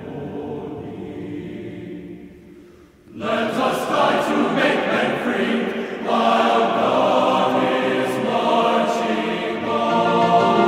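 Choral music with many voices singing sustained chords; a quieter passage fades away about three seconds in and a louder, fuller section begins.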